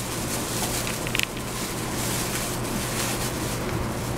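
Cabin noise inside a Keikyu New 1000 series electric train: an even rushing noise over a steady low hum, with a few brief clicks about a second in.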